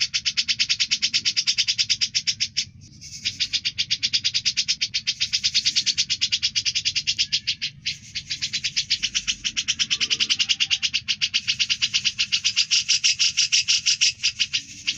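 Cucak jenggot (grey-cheeked bulbul) singing a fast, continuous chattering trill of rapidly repeated high notes, with two short breaks about three and eight seconds in.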